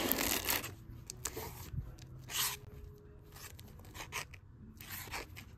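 Comic books in plastic bags being flipped through by hand in a box: the sleeves rustle and slide against each other, with a longer scrape at the start and a few short swishes after.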